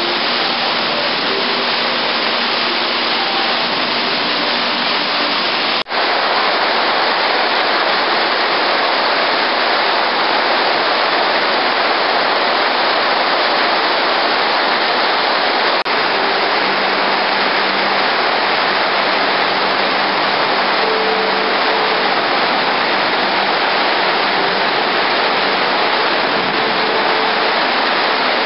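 Steady loud rushing hiss of falling water, unbroken but for a brief dip about six seconds in.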